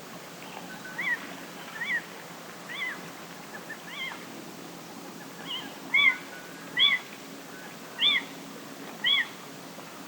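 A cat meowing over and over: short, high-pitched mews about once a second, growing louder about halfway through.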